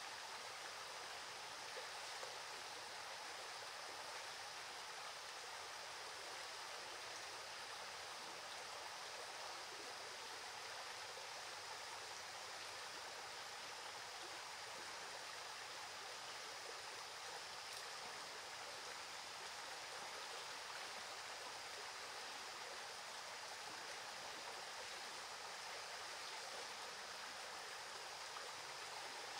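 Steady, even rushing noise with a faint, steady high tone over it.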